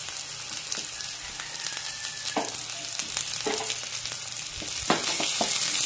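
Chopped onion sizzling in hot oil in a small steel pan, with a steady hiss. A steel spoon stirs it, scraping the pan a few times.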